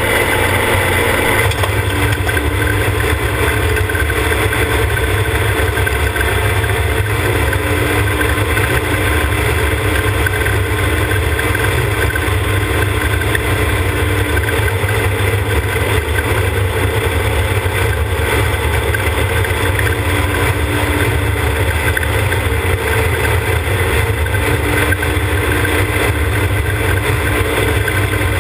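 Side-by-side UTV engine running at a steady cruise while driving a gravel road, a constant low drone with no changes in pace.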